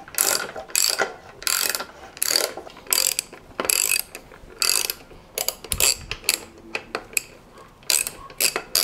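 Socket ratchet clicking as it undoes the bolts holding an outboard motor's lower unit: slow ratcheting strokes at first, then from about five seconds in a run of quicker, shorter clicks.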